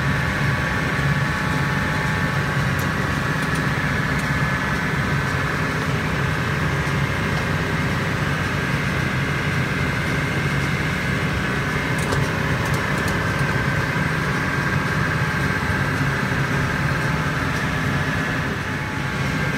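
Case IH Maxxum 125 tractor's diesel engine running steadily, a constant low hum with a steady high whine over it.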